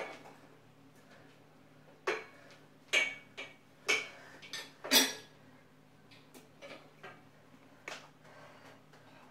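Sharp metallic clacks from a Lambda Fitness incline sliding-bench cable machine being worked through reps, about one a second and loudest about five seconds in, then a few lighter knocks. A low steady hum runs underneath.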